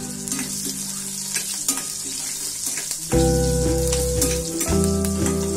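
Hot oil sizzling and crackling in a stainless steel kadai as a tempering of seeds, green chillies, dried red chillies and curry leaves is stirred with a spoon. Background music with held notes, which becomes the loudest sound about three seconds in.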